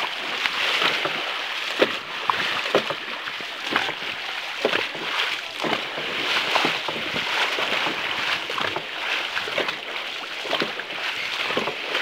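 Dragon boat paddles dipping and splashing stroke after stroke, with water rushing along the hull.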